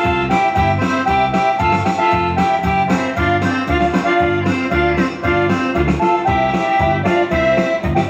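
Live dance music from a norteño-style group: accordion melody in held notes over guitar and a bass line, keeping a steady beat.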